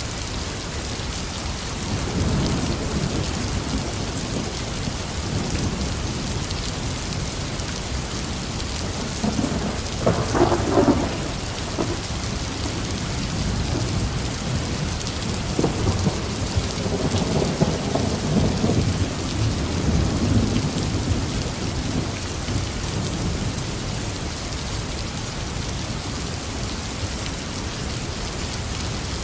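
Heavy rain falling steadily, with thunder rumbling. The thunder starts about two seconds in, gives a sharper crack about a third of the way through, then rolls on in a long low rumble before fading.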